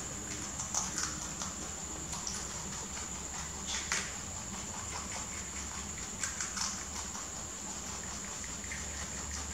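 Rabbits chewing leafy green stalks: small, irregular crisp crunches and rustles, with the sharpest crunches about a second in, near four seconds and around six and a half seconds. A steady high-pitched whine runs underneath.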